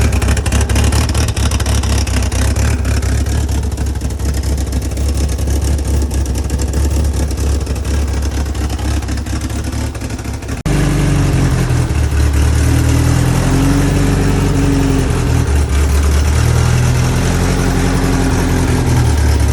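Car engine running steadily. After a sudden cut about ten seconds in, it is revved up and down several times.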